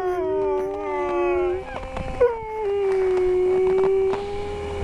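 Huskies howling: several long, overlapping howls that slide down in pitch and then hold steady, one drawn out for a couple of seconds near the end.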